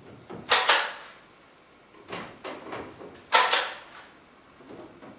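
Wooden knocks and clunks as carved wooden pieces of an antique cabinet are set into place: a loud double knock about half a second in, a few lighter taps around two to three seconds, and another loud double knock a little past three seconds.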